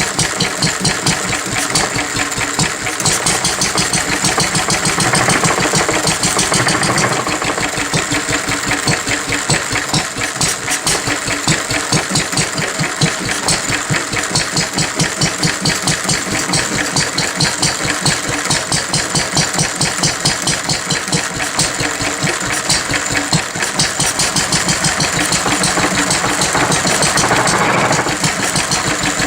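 1937 2hp Lister D type single-cylinder stationary engine running steadily on its first run after a rebuild, its firing strokes beating in a fast, even rhythm.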